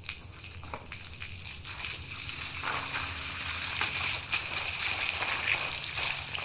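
Water sloshing with a crackling, crunchy texture of many small sharp clicks, growing louder over the first few seconds.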